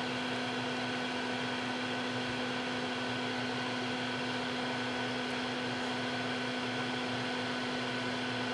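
Steady machine hum with a constant hiss underneath: one strong low tone and fainter higher ones that never change.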